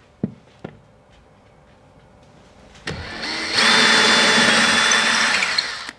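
Electric drill boring a 6 mm hole for a wall plug: a couple of small clicks, then about three seconds in the drill spins up, runs steadily at full speed for about two seconds and stops just before the end.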